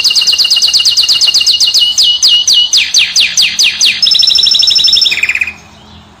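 Finch singing a fast trill of repeated, quickly falling notes, switching to a new repeated note a few times, then stopping about five and a half seconds in.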